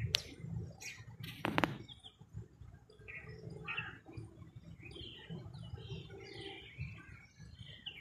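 Small birds chirping in short, scattered calls, busiest in the second half, over a low rumble on the microphone. A few loud sharp clicks come in the first two seconds.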